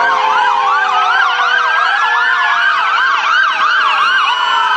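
Several emergency vehicle sirens sounding at once: a fast yelp of about three sweeps a second overlapping slower rising and falling wails, over steady lower tones. The yelp drops out near the end while the wails carry on.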